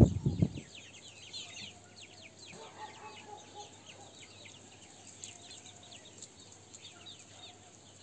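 Young chickens peeping: many short, high, falling peeps, with one lower, longer call around three seconds in. A loud low rustling noise cuts off about half a second in.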